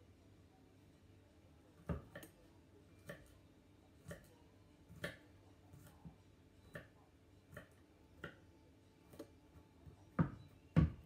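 Kitchen knife cutting vegetables down onto a wooden cutting board: a dozen or so short, unevenly spaced knocks, the two loudest near the end.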